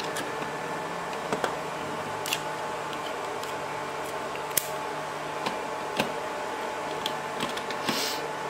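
Scattered light clicks and taps of a plastic DIN-rail digital timer and its wires being handled while a wire is fitted into its screw terminal, over a steady low hum. A short rustle comes near the end.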